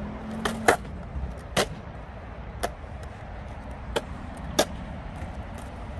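Surfskate wheels rolling on smooth skatepark concrete with a steady low rumble, broken by about six sharp clacks spread over the few seconds.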